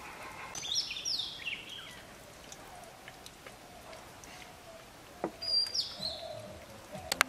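Songbird calls: two short phrases of quick chirps stepping down in pitch, about a second in and again past halfway, with a couple of sharp clicks in between.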